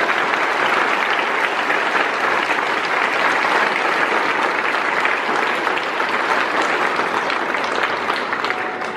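A large audience of schoolchildren applauding steadily, the clapping tailing off near the end.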